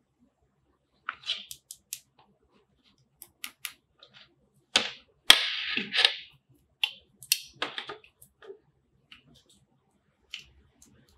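Hands handling a charger's plastic packaging and USB cable: scattered sharp clicks and taps of plastic. About five seconds in there is a louder rustle of packaging.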